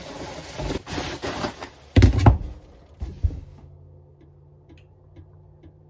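Bubble wrap rustling and crinkling as it is handled in a cardboard box, then a couple of heavy thumps about two seconds in and a lighter knock about a second later.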